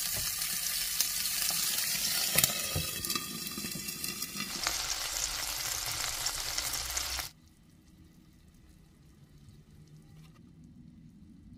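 Food sizzling as it fries in a pan, an even crackling hiss with a couple of sharp clicks a little over two seconds in. The sizzle cuts off suddenly about seven seconds in.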